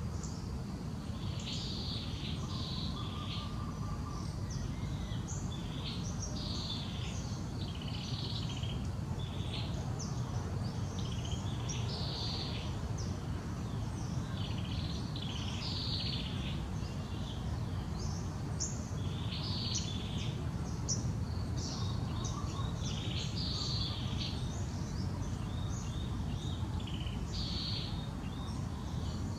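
Birds chirping: short, high calls repeated every second or two over a steady low background rumble.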